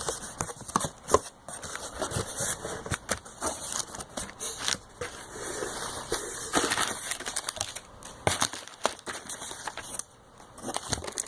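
A cardboard shipping box and its packing material being opened and handled: irregular crackling, crinkling and clicking.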